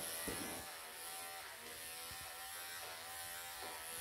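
Electric pet clippers running with a steady buzzing hum, shaving a long-haired cat's matted coat.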